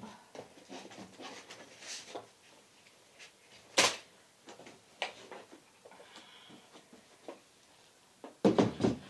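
Wooden drawers being handled and slid into an oak cabinet: scattered knocks and scrapes of wood on wood, with one sharp knock about four seconds in and a cluster of louder knocks near the end.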